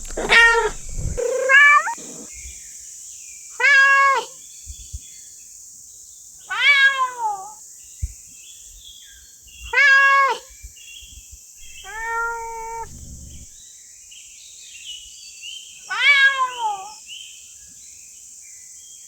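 A cat meowing: about seven separate meows a few seconds apart, several of them dropping in pitch at the end.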